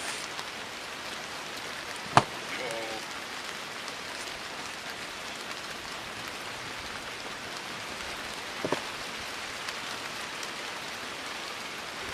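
Steady rain, an even hiss, with a sharp tap about two seconds in and a fainter one near nine seconds.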